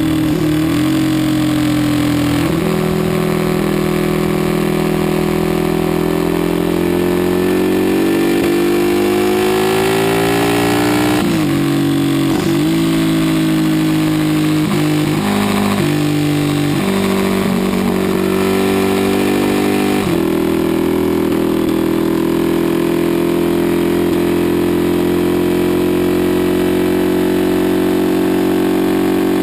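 Aermacchi Ala d'Oro 350's single-cylinder four-stroke engine at racing revs, heard from on board: the pitch climbs through the gears, drops sharply several times about a third of the way in as it is shifted down for a corner, then climbs steadily again as it accelerates out, with wind rush.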